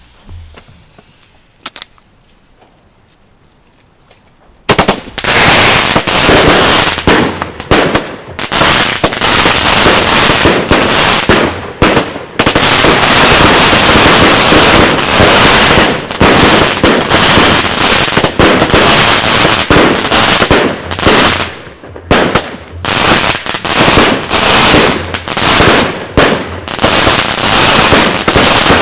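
Terremoto 50-shot firework cake firing. A faint hiss of the burning fuse runs for the first four and a half seconds, then the cake goes off in a rapid, almost continuous string of loud shots and bangs with only brief gaps.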